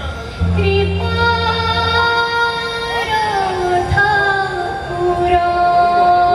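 Live band music: a woman singing long, held notes into a microphone, with a downward slide about three seconds in, over keyboard and band accompaniment.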